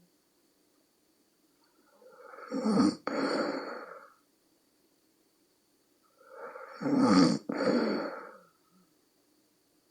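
A woman snoring in deep sleep: two long, rough snores about four and a half seconds apart, each broken by a short catch in the middle, the croaking kind of snore likened to a bullfrog.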